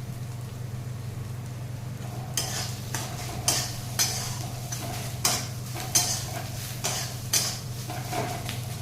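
Spatula stirring and scraping crumbled paneer in a frying pan, in short strokes about twice a second starting about two seconds in. A low steady hum runs underneath.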